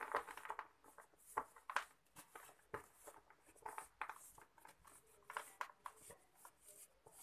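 Soft, dry sand-cement lump crushed by hand and crumbled sand trickling through the fingers: faint, irregular gritty crunches and crackles, a few a second.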